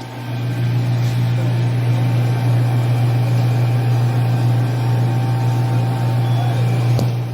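Refrigerator compressor running: a steady low hum that swells in just after the start, with a single click about seven seconds in.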